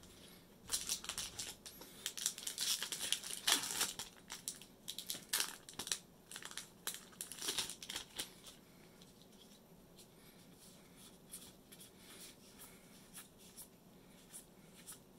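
A foil Magic: The Gathering booster pack wrapper is torn open and crinkled, a run of crackling tears through the first half or so. After that it goes quieter, with only faint ticks as the cards are handled.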